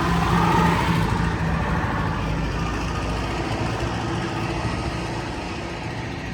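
Diesel engine of a small portable concrete mixer running steadily, its even hum clearest in the first second and then gradually getting quieter.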